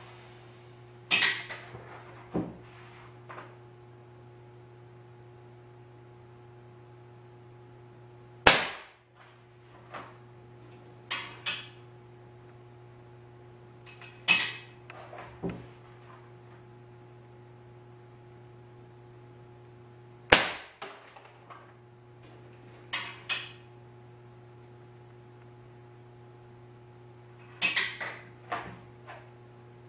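Homemade .177 smooth-bore air gun, its 24 V solenoid valve dumping a 150 psi air charge, fired twice about twelve seconds apart: two sharp cracks, the loudest sounds, as pellets hit a paper target. Smaller clicks and knocks come in between, over a steady low hum.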